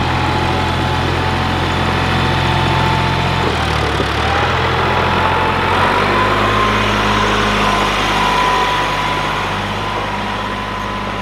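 Ford compact tractor's engine running steadily as the tractor drives along with a load of logs on the loader. Its note shifts about three and a half seconds in and again about six seconds in, with a faint whine above it.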